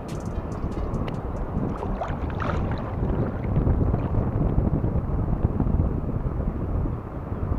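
Wind rumbling on the microphone over the wash of the sea around the wader, with a few faint clicks early on and a brief hiss about two seconds in.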